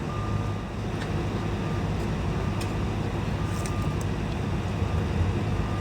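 Diesel engine of heavy construction equipment running steadily, a low rumble with a faint high tone that comes and goes.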